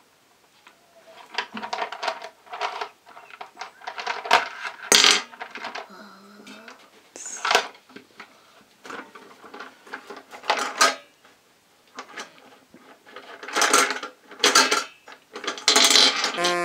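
Small chocolate candies clattering and clicking irregularly into a stainless steel pot as they are slowly tipped out of a plastic bowl, with louder rattles about 5 s in, 7–8 s in and around 14 s in, and the pot ringing faintly after the bigger clatters.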